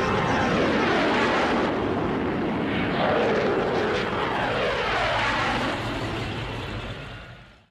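Aircraft flying low overhead in several passes, the engine roar sweeping down and up in pitch as each passes, fading and then cutting off abruptly near the end.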